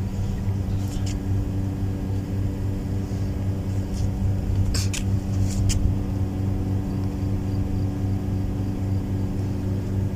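Steady low machine hum with even overtones, with a few faint clicks about five seconds in.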